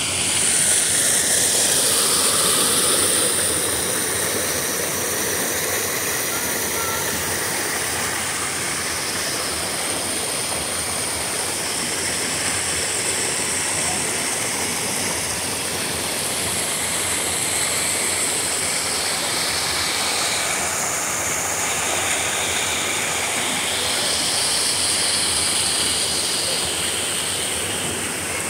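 Rocky stream rushing over a cascade between boulders: a steady, even rush of water, a little louder in the first few seconds.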